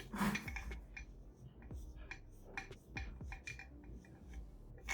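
Scattered light clicks, taps and rubbing from handling mountain bike fork lowers and tools at a workbench, with a sharper knock near the end.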